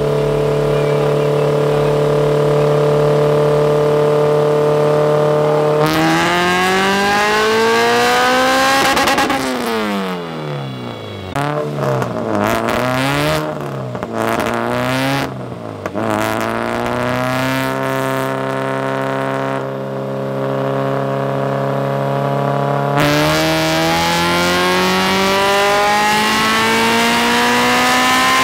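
Eighth-generation Honda Civic sedan's four-cylinder engine running on a chassis dyno. It holds steady, then climbs in pitch through a pull about six seconds in. It then rises and falls several times in quick blips, settles steady again, and climbs through a second pull near the end.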